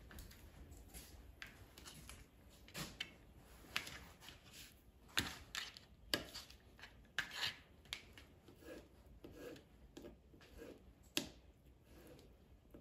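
Kitchen knife slicing imitation crab sticks into thin strips on a plastic cutting board: about a dozen faint, irregular taps of the blade against the board.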